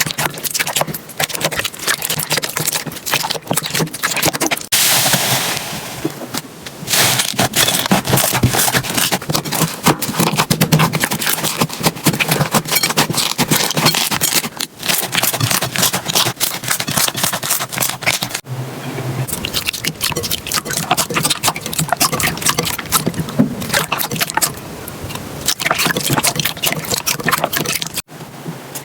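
Slime being squeezed and pressed by hand, with dense, fast crackling and popping. The texture changes abruptly several times from one short clip to the next.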